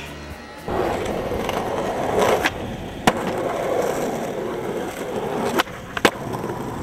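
Skateboard wheels rolling on asphalt, starting under a second in. Sharp clacks of the board come about three seconds in and twice more close together near the end.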